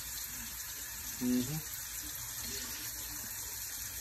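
Steady hiss of a stovetop pot of chicken, potatoes and carrots simmering in broth over a low flame. A short vocal sound is heard about a second in.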